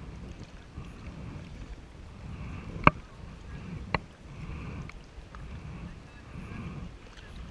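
Kayak paddling: water swishing in a regular stroke rhythm, with two sharp knocks about a second apart near the middle.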